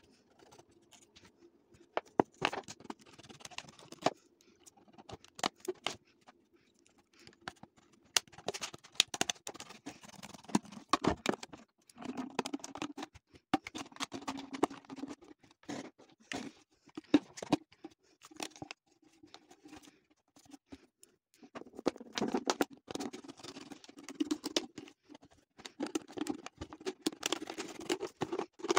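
Irregular small clicks, taps and scratching, rustling sounds of objects being handled, coming in clusters with short pauses.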